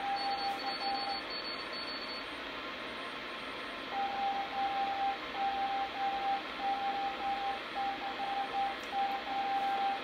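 Morse code (CW) from a vintage National 173 tube communications receiver: a steady beat tone keyed on and off in dots and dashes over shortwave band hiss. The tone stops about a second in and comes back about three seconds later. The station is calling CQ TEST, a contest call.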